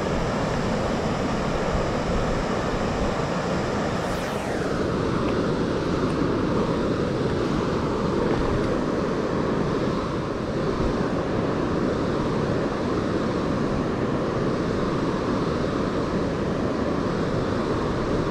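Steady rushing of river water, an even noise with no clear rhythm. A brief falling swish about four seconds in.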